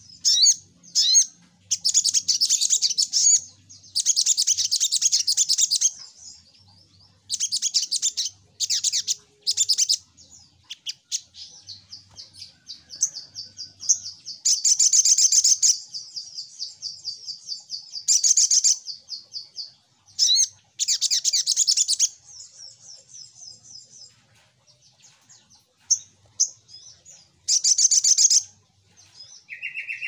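Sogok ontong songbird singing: loud, rapid, high-pitched chirping trills in bursts of one to two seconds, about ten of them, with quieter running twitter between the bursts.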